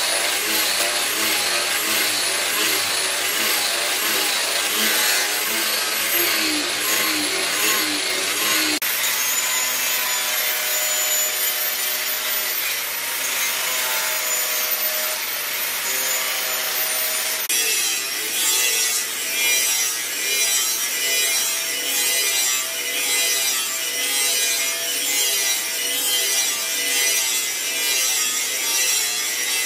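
Angle grinders working a steel leaf-spring cleaver blank: first a grinding disc on the blade's flat face with a wavering high whine, then, about nine seconds in, a cut-off wheel slicing through the steel. About eighteen seconds in the sound changes to a rough steady noise that swells about once a second.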